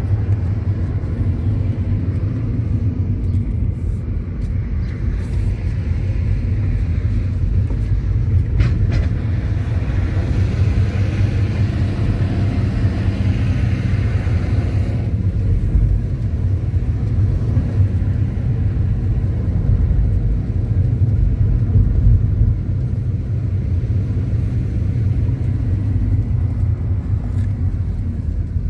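Car on the move, a steady low engine and road rumble, with a louder hiss from about ten to fifteen seconds in.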